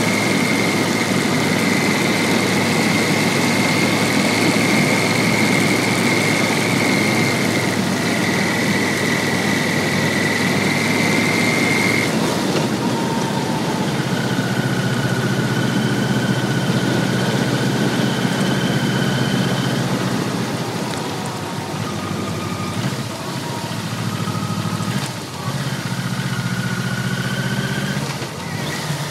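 Yamaha VMAX1200's V4 engine running under way, heard from an onboard camera on the motorcycle, with a steady high whine over it for the first twelve seconds or so. The engine sound gets quieter in the last third.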